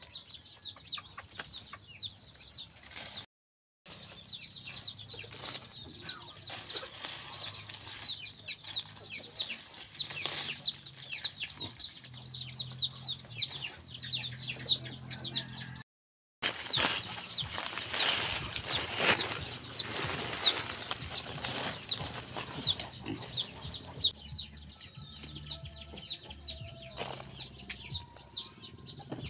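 Hands digging and scraping in loose soil and rustling plants as purple yam (ube) tubers are pulled out and broken apart, with scattered short knocks. Behind it, a constant stream of high, quick falling chirps, several a second, over a steady high insect drone; the sound drops out completely twice for a moment.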